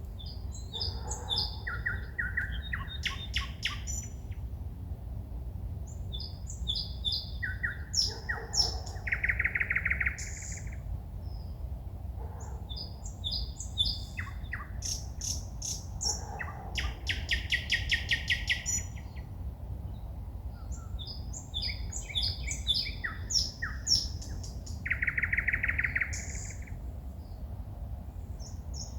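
A woodland songbird singing at night in separate phrases a few seconds apart. The phrases mix clear held whistles, rapid rattling trills and short repeated notes, over a steady low rumble.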